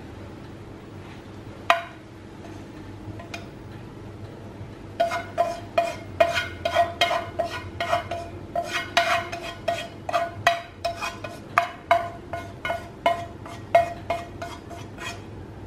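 Chopsticks scraping and tapping against a nonstick frying pan as food is scraped out of it: one tap about two seconds in, then quick repeated scrapes and knocks about twice a second from about five seconds in, each with a short ring from the pan.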